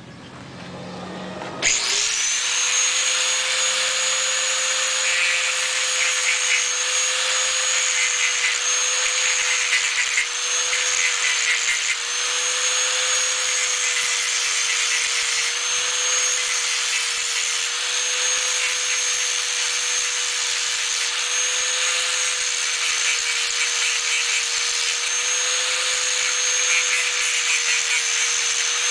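Handheld electric power tool starts about two seconds in and runs at a steady high pitch, dipping slightly now and then. It begins to wind down at the very end.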